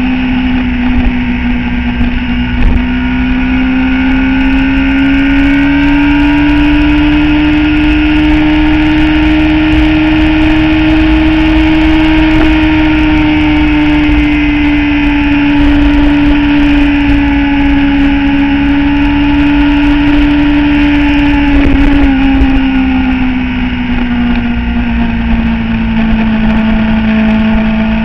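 Motorcycle engine pulling steadily at road speed, its note rising slightly, holding, then dropping as the throttle eases late on, with low wind rumble on the microphone.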